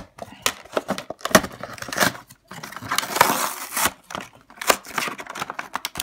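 Cardboard blister-card backing of a die-cast toy car two-pack being torn by hand, with the clear plastic blister crackling and crinkling as it is pulled open. The rips and crackles come in irregular bursts with a few brief pauses.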